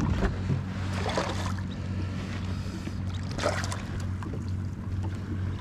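Water splashing and sloshing around a fishing kayak, with a few short louder splashes over a steady low hum.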